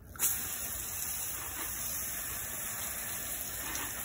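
Garden hose spraying a steady stream of water over potted tomato plants and wet concrete: an even, unbroken hiss.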